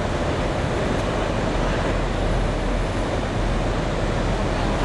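Steady outdoor background noise: a continuous low rumble and hiss with no distinct events.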